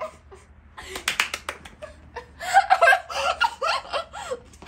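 A girl laughing in short, excited bursts, with a quick run of sharp sounds about a second in.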